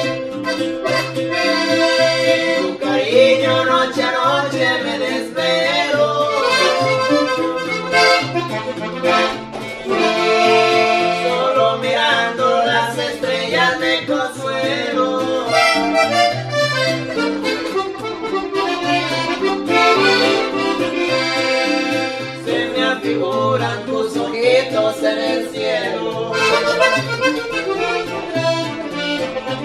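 Red button accordion playing a norteño melody, backed by the strummed chords and stepping bass line of a twelve-string bajo.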